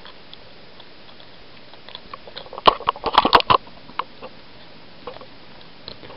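Handling noise: a few faint ticks and light rustling, then a quick cluster of sharp clicks and knocks about two and a half to three and a half seconds in, as the handheld camera and its mic are moved and bumped.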